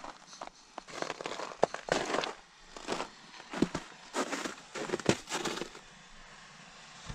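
Irregular crunching and rustling close to the microphone, from about a second in until near the end: movement and handling in snow.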